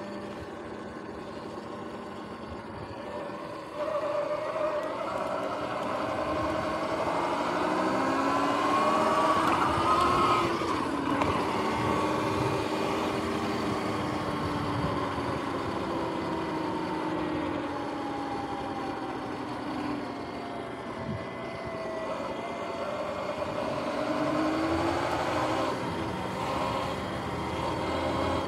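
Sur-Ron X electric dirt bike's motor and primary belt drive whining under way. The whine gets suddenly louder about four seconds in, climbs in pitch as the bike speeds up to about ten seconds in, then sinks slowly and climbs again near the end. A steady rush of wind and road noise runs underneath.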